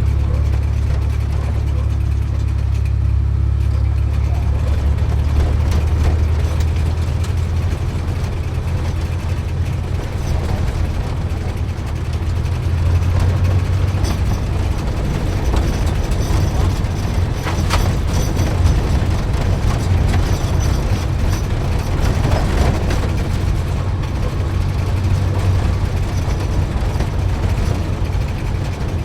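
Sports car driving slowly, its engine giving a steady low rumble that swells a little now and then.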